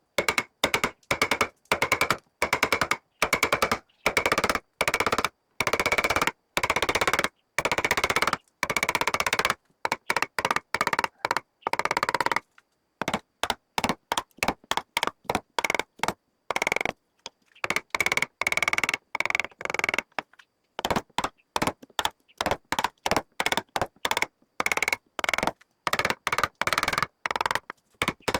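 Woodworking tool noise: rapid strings of sharp taps or knocks on wood in short bursts, each cutting off abruptly before the next begins.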